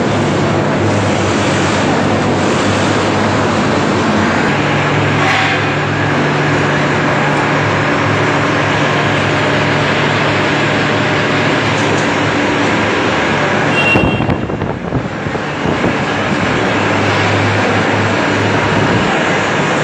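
Tractor diesel engine running steadily in a crowded hall, with the low hum of the engine under a general noisy haze. A sharp knock about two-thirds of the way through.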